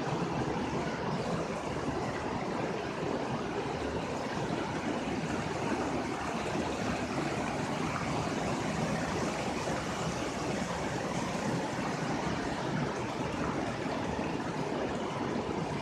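Running water from a mountain spring and its stream: a steady, even rush that does not change.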